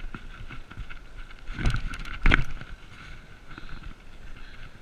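BMX bike rolling down a bumpy dirt trail: tyre and frame rattle with a faint steady high tone, and two loud jolts about half a second apart around the middle as it hits bumps.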